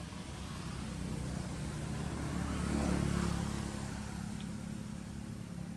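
A motor vehicle driving past, its engine hum swelling to a peak about three seconds in and then fading away.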